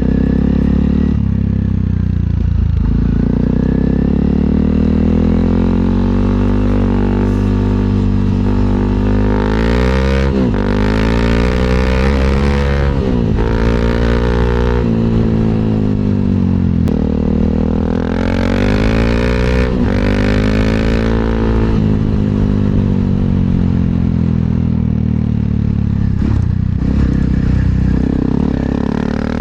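Honda CRF300L's single-cylinder engine through a freshly repacked budget aftermarket muffler, heard while riding: the exhaust note rises and falls as the throttle is rolled on and off, with two harder pulls about ten and eighteen seconds in. The repack has left it about as loud as before.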